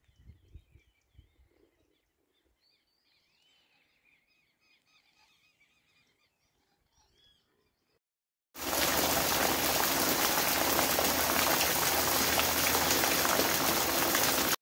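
Faint chirping calls over near quiet, then an abrupt start about eight and a half seconds in of heavy rain pouring down steadily, the loudest sound.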